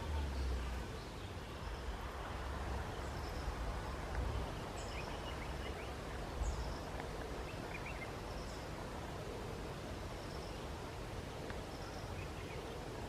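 Outdoor ambience with wind rumbling on the microphone, heaviest in the first few seconds. A faint, short, high chirp repeats about once a second throughout, with a few small ticks and rustles.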